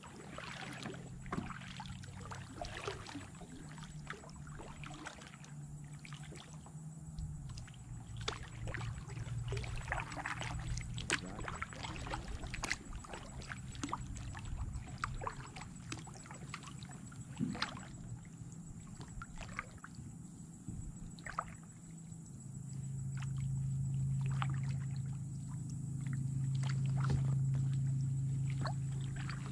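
Kayak paddling on calm water: paddle blades dipping and dripping, with irregular small splashes. A low steady hum underneath grows louder over the last several seconds.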